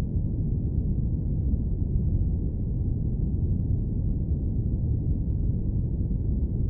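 Airplane cabin noise: a steady, even low rumble with no high hiss, unchanging throughout.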